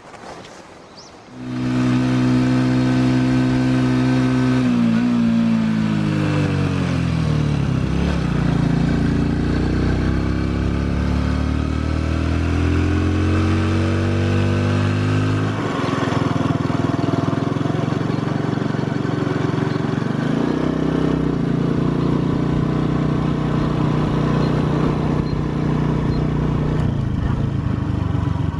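Honda Super Cub's single-cylinder four-stroke engine running as the bike is ridden, heard from on board. It comes in suddenly about a second in, its pitch falls and rises between about five and fifteen seconds in, then it runs steadily.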